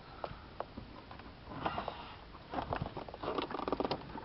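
Scattered light clicks and rustling of car wiring and plastic parts being handled, irregular and with no steady machine sound.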